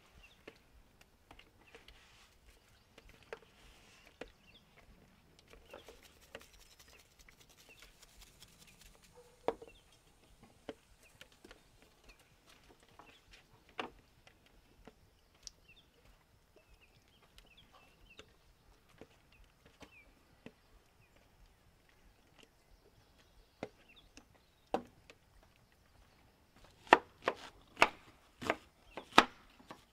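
Knife chopping a red onion on a bamboo cutting board near the end: a run of sharp knocks, about two to three a second. Before that, scattered faint clicks and taps of spice shakers and hands working over a plate of beef cubes.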